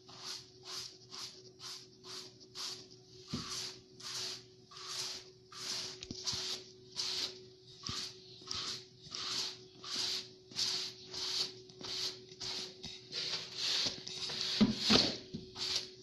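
Short rhythmic swishing strokes over a floor, about two a second, over a faint steady hum, with a couple of louder knocks near the end.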